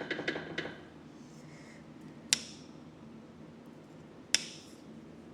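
Light metallic clicking from a mini excavator's track tensioner being rocked by hand, a quick rattle that stops about half a second in, then two sharp metal clicks about two seconds apart. The play is the tensioner shifting in its C channel, not a worn idler bearing.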